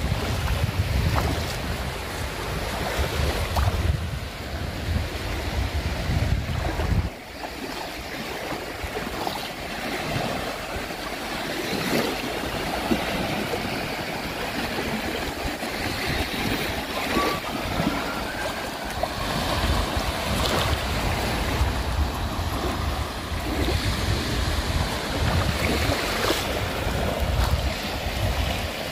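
Sea surf washing steadily, with wind buffeting the microphone as a low rumble during the first seven seconds and again over the last ten.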